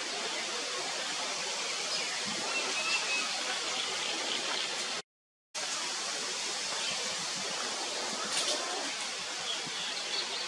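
Steady rushing outdoor background noise, with a few faint high chirps; the sound cuts out completely for about half a second midway.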